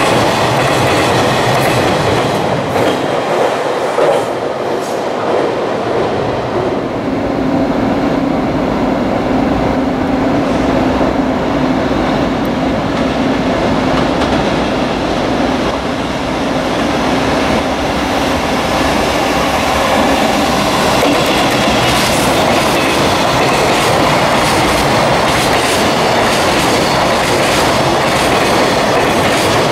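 Long container freight train running past close by: a loud, steady rumble of wagon wheels on the rails with a rhythmic clickety-clack. A low steady hum joins in for several seconds in the middle.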